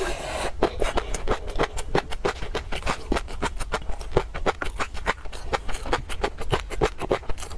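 Close-miked chewing of a mouthful of peanut sauce: a fast, continuous run of small crisp clicks and crackles, several a second.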